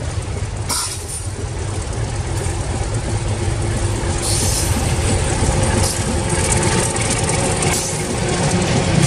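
Diesel locomotive hauling a passenger train, its engine rumbling steadily and growing louder as it draws near and passes, with the rush of wheels on the rails coming in from about four seconds in.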